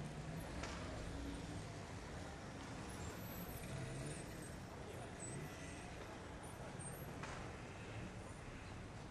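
Outdoor urban ambience: a low traffic rumble with faint voices, swelling as a vehicle passes about three seconds in.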